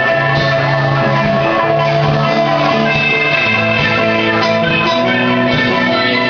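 A rock band playing live: electric guitar and drum kit, with a bass line that shifts every second or so.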